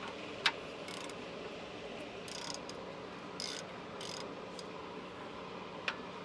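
Hand socket ratchet clicking in about four short bursts as a bolt is worked loose, with a sharp metal click about half a second in and another near the end.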